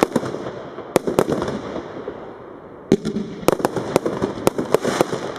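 Royal Fireworks 'Ultimate' consumer fireworks cake firing: about ten sharp bangs at irregular intervals, some in quick pairs, over a steady hiss.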